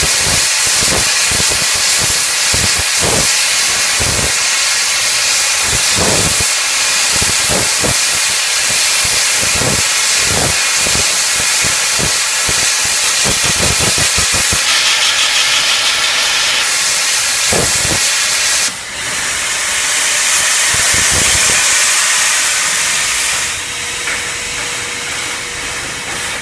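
NSWGR 36 class steam locomotive 3642 hissing steam loudly and continuously, with irregular low thumps through the first part. About 19 s in the hiss changes abruptly and grows brighter, then eases near the end.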